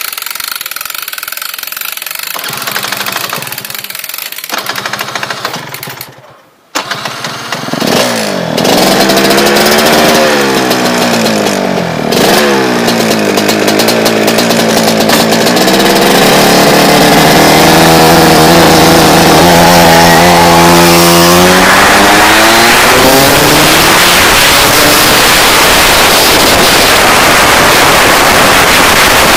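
Rotax DD2 racing kart's two-stroke engine running at speed. Its pitch climbs and drops again and again as it accelerates and slows, then is held high for several seconds before falling off. The first few seconds are quieter, with a brief drop-out before the engine note takes over.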